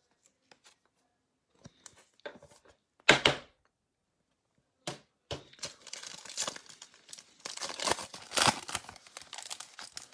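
A foil trading-card pack being torn open and its wrapper crinkled: a couple of sharp rips about three and five seconds in, then several seconds of dense crackling.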